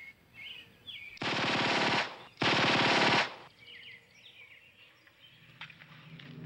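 Two bursts of rapid automatic gunfire, each lasting under a second, about half a second apart.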